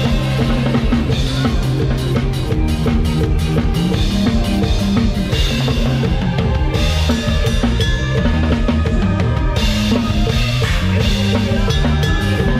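Lam sing band music with the drum kit to the fore: bass drum, snare and rimshots keep a steady dense beat over bass and sustained melody instruments.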